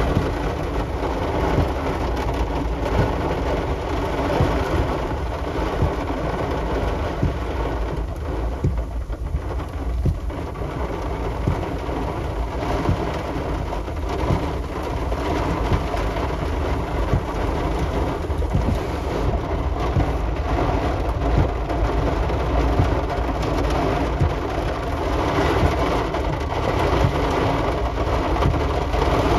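Heavy storm rain pouring down as a dense, steady patter of drops, with a constant low rumble underneath.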